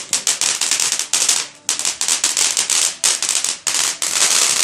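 A firework going off again in a rapid run of sharp crackling pops, several a second, thickening into a dense continuous crackle near the end.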